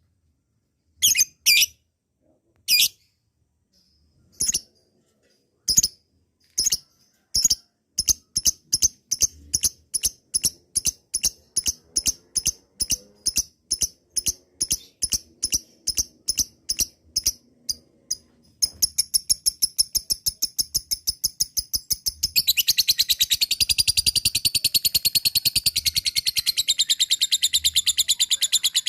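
Lovebird calling: a few sharp, high chirps, then a steady series of about three chirps a second that speeds into a fast, continuous chatter, fuller and louder near the end. This is the lovebird's long 'ngekek' chattering song.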